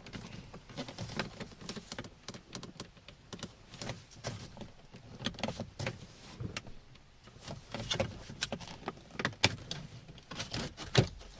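Irregular plastic clicks, taps and rattles of a car door's power lock switch trim being slid forward and worked loose by hand, with a couple of sharper knocks near the end.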